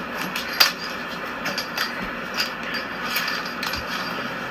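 A kitten batting a small object across a hardwood floor: scattered light clicks and taps over a steady background hiss.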